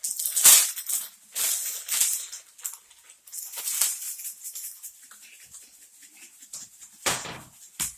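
Sticky homemade slime being squished and pulled by hand, giving irregular bursts of sticky crackling, loudest about half a second in and again near the end.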